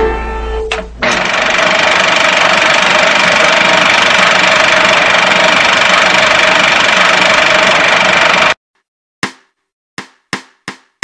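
A loud, steady rushing noise with a faint hum in it, cutting off suddenly about eight and a half seconds in; then five short, sharp hits, each dying away quickly.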